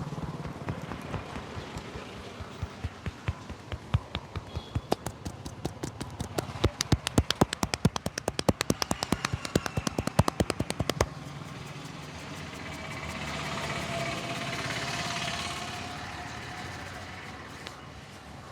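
Rapid rhythmic hand strikes of a head massage, the barber's hands slapping and tapping the scalp. They speed up and get louder, at about five or six a second, then stop suddenly. A vehicle passing in the street follows, its noise swelling and fading.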